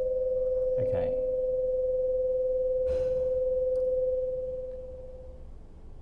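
Acoustic feedback: a steady single-pitched howl from the MacBook Pro speakers feeding back into the lavalier mic, fading out about four to five seconds in.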